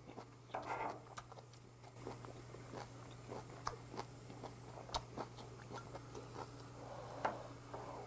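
Close-up chewing of a mouthful of blanched webfoot octopus and crisp spinach: many small wet clicks, smacks and crunches, with a low steady hum underneath.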